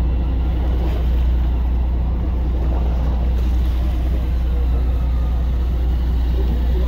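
Fishing boat's engine running with a steady low drone, under water and wind noise.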